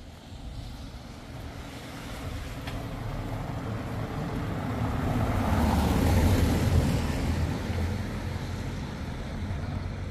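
A vehicle passing close by: its sound swells to a peak about six seconds in, then fades away.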